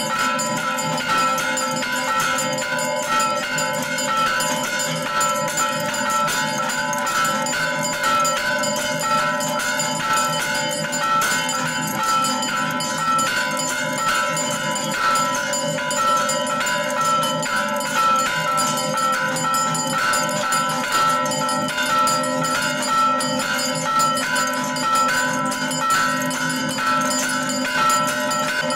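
Temple bells and a hand-held brass gong plate struck rapidly and without pause during aarti, the lamp-waving worship, giving a dense, continuous ringing.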